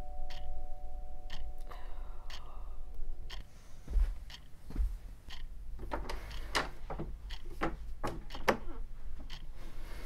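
The two tones of a ding-dong doorbell chime ring on and die away in the first couple of seconds, over a clock ticking about once a second. From about six seconds in, a round door knob is turned, and its latch clicks and rattles several times.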